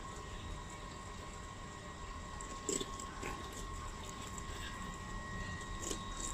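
Knife slicing along a python's belly skin, with a few short cutting sounds about three seconds in and again near the end, over a steady low hum and a faint high whine.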